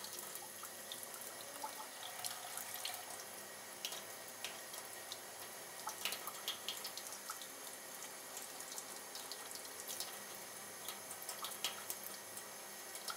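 Tap water running in a thin, steady stream, with scattered small splashes and drips.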